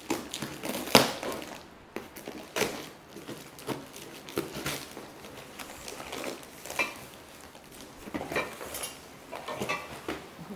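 Cardboard packaging rustling and being pulled apart, with irregular knocks and clanks of black metal hammock-stand tubes being lifted out and knocking together, a few clanks ringing briefly.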